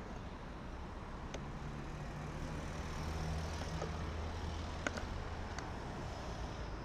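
City road traffic: cars driving past a pedestrian crossing, with a low engine drone that swells around the middle as a vehicle goes by. A few sharp clicks sit on top of it.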